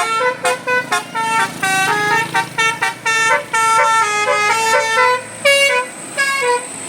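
Tour bus's 'telolet basuri' musical air-horn playing a quick melody: a run of short notes stepping up and down in pitch, with brief breaks between phrases.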